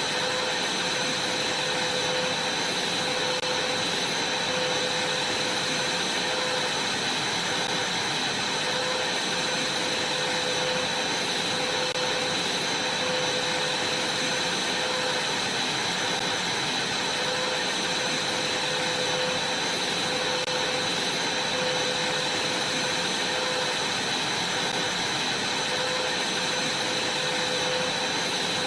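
Vacuum cleaner running steadily, a high whine over the rush of air.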